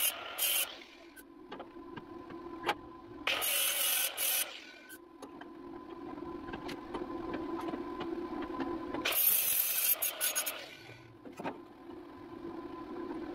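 Angle grinder grinding on steel body panel in three bursts of about a second each, with the motor humming between them. There are a few sharp knocks.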